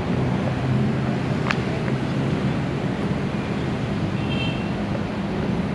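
Steady rumble of road traffic with engine drone, broken by a brief high chirp about one and a half seconds in and a short high tone near the four-second mark.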